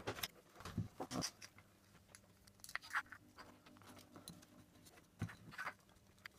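Faint handling noise of small plastic parts and cable: a few scattered light clicks and knocks as a small plastic case is fitted onto the back of a stepper motor.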